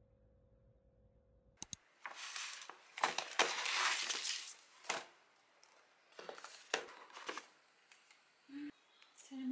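Paper gift bag rustling and crinkling in repeated bursts as it is handled and unpacked, starting after a couple of clicks about one and a half seconds in.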